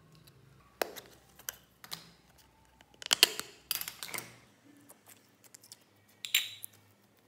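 Sharp clicks and sticky crackles from handling a small plastic putty container and the jelly putty inside it as they are pulled free of white slime. The loudest crackling comes about three seconds in, with another burst near the end.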